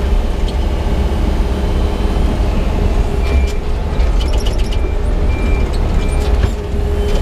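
Yanmar crawler excavator's diesel engine running steadily while it digs, with short high squeaks and clicks partway through.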